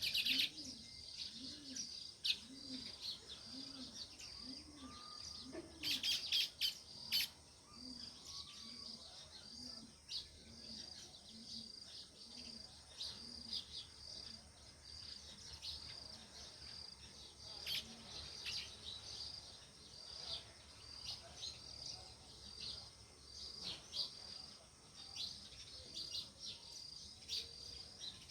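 House sparrows chirping, a regular run of short chirps about two a second, with a louder flurry of chirps about six to seven seconds in. A faint steady high-pitched tone runs underneath.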